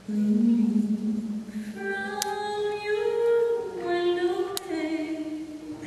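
Slow music with a voice holding long notes, the melody moving in steps from note to note. Two sharp clicks cut through it, about two seconds in and again near four and a half seconds.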